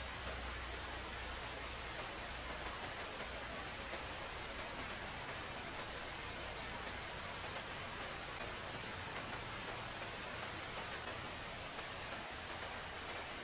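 Forest ambience with an insect chirping steadily in a high, evenly pulsing trill, about two pulses a second, over a steady background hiss.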